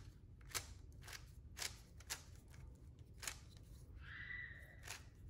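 Faint turning of a plastic 3x3 puzzle cube that has been glued into a bandage cube: about six sharp clicks at uneven intervals as the layers are turned by hand. A short, high, steady tone comes in about four seconds in.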